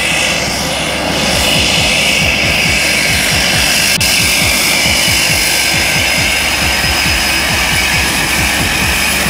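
Cessna 208 Caravan's single PT6A turboprop engine and propeller running as the plane taxis up close: a loud steady whine over a heavy rumble, growing a little louder about a second in.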